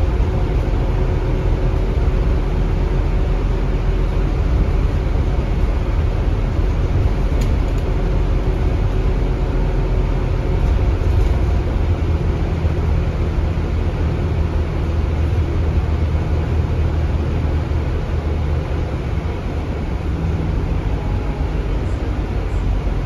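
Scania DC9 five-cylinder diesel of a Scania K320UB bus under way, heard from inside the cabin: a steady low engine and road rumble, with a faint steady whine over it that fades out about halfway through.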